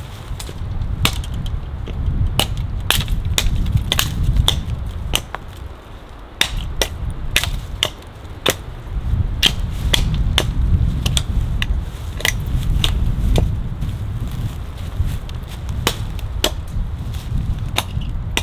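Hatchet chopping into a leaning fallen tree trunk: sharp, irregular strikes about one or two a second, over wind rumbling on the microphone.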